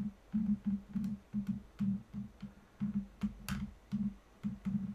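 A cheap tripod's pan head creaking as the camera is panned: short, uneven bursts of one low tone, several a second, with a few small clicks.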